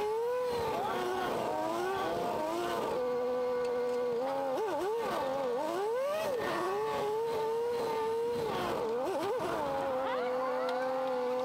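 Drift car's engine heard from a camera on the car, revving up and down in quick blips, with stretches held at a steady, even pitch in between.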